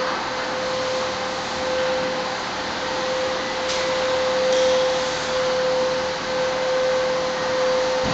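A machine running steadily: a constant whirring hum with a steady whine in it, plus a couple of faint clicks near the middle.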